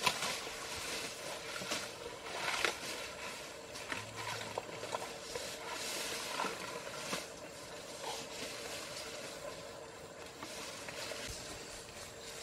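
Asian elephant feeding on grass and stalks: irregular rustling and crunching as it pulls and chews the leaves.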